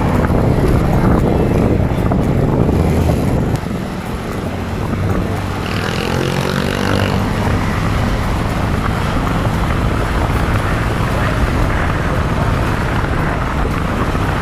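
Riding noise from a Honda Click scooter, recorded from the rider's helmet: wind rushing over the helmet and the engine running underneath. The wind is heaviest for the first few seconds, then eases, and a short rising engine note sounds about six seconds in.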